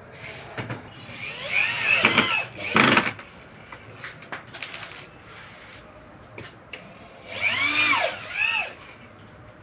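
Corded electric drill run in two short bursts against a wooden board, its motor whine rising and falling in pitch each time, once about a second in and again near the end, with small clicks and knocks between.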